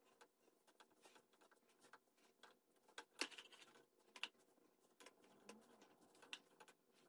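Near silence with faint, scattered taps and rustles of handling as a hot comb and wig hair are worked by hand, with a couple of sharper clicks about three and four seconds in.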